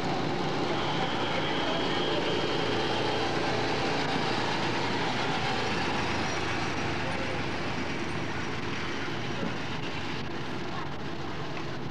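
Go-kart engines running as several karts lap the track, a steady mix of small engines.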